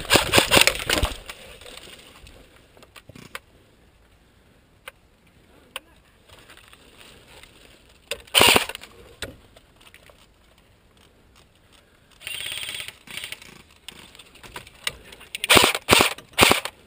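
Airsoft electric AK rifle, a CYMA CM.028, firing short full-auto bursts: one at the start, one about eight seconds in, and several close together near the end, with scattered single ticks between.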